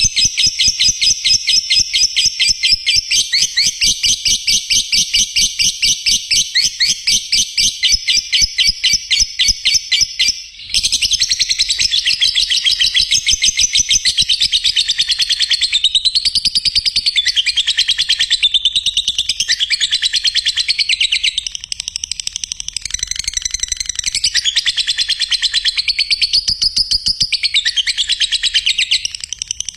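Lovebird singing a long run of rapid, high chirps with a short break about ten seconds in. After the break the notes become more varied in pitch.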